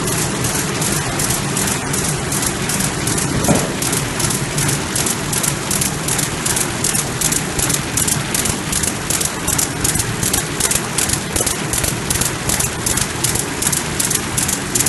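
Paper-bag bottom pasting machine running: a steady mechanical clatter and hiss with an even, fast beat of several strokes a second. There is one sharp knock about three and a half seconds in.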